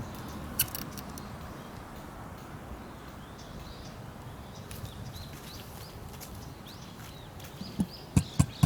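Emu calling: a run of deep, short thumping pulses that starts about a second before the end, about three or four in quick succession. Before that there is only faint outdoor background, with small birds chirping faintly.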